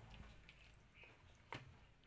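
Faint wet squishing of an oily hand rubbing cooking oil into a raw beef steak, with one sharp click about one and a half seconds in.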